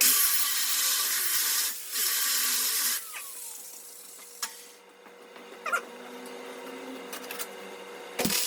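Two bursts of steady hissing noise, the first nearly two seconds long and the second about a second, then a few faint clicks and short squeaks.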